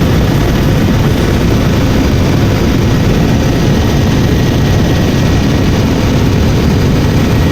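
Helicopter running: a loud, steady rotor and engine noise, heaviest in the low end.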